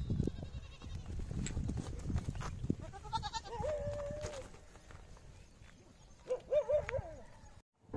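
Two bleats from a mixed flock of sheep and goats: one about three seconds in that ends on a held note, and a wavering one near the end. Beneath them is the low scuffle of the flock walking on the road.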